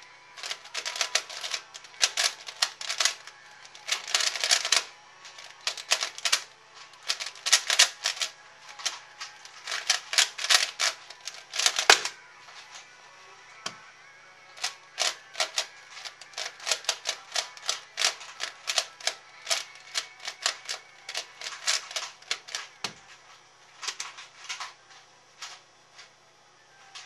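Rapid clicking and clacking of a C4U 3x3x3 speedcube being turned fast by hand, in dense bursts. About twelve seconds in comes one sharp slap as the solve ends and the timer is stopped. Further bursts of turning follow.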